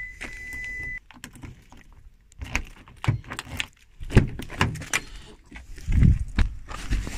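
Hyundai Kona Electric's steady high-pitched warning tone, which the car gives because the key fob is carried outside while it is left on, cutting off abruptly about a second in. Then keys jangling, clicks at the door handle and the driver's door being opened, with knocks near the middle and near the end.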